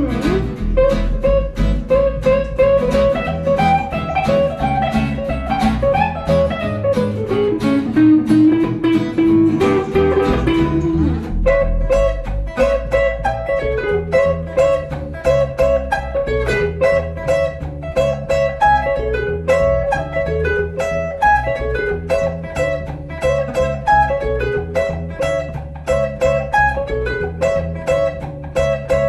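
Blues trio playing an instrumental passage on electric guitar, acoustic guitar and upright double bass. A guitar lead slides and bends its notes for the first ten seconds or so, then switches to quick repeated picked notes over a steady plucked bass line.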